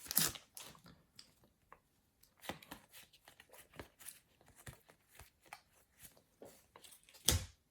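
Faint handling of trading cards and their foil packet: a scatter of small crinkles and clicks as a packet is torn open and the cards are sorted, with one louder crackle near the end.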